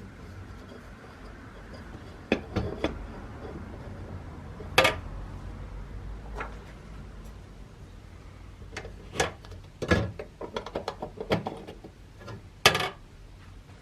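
Irregular knocks and light metallic clinks as the sheet-metal parts of a Dietz D-Lite hurricane lantern are handled, with three sharper knocks standing out.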